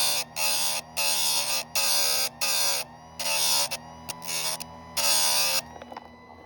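Electric chainsaw-chain grinder motor humming steadily while its wheel is bumped against a saw-chain cutter tooth again and again: about eight short, rasping grinding bursts, each about half a second long, that stop near the end. The wheel is regrinding a worn, squared-off cutter.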